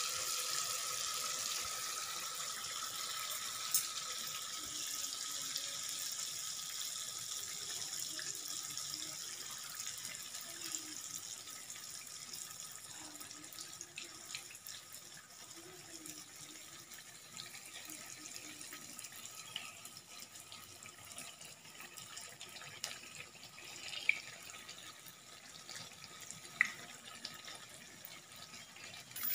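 Unniyappam batter deep-frying in hot oil in a 12-hole appam pan: a steady sizzling hiss that slowly grows quieter, with a few faint ticks.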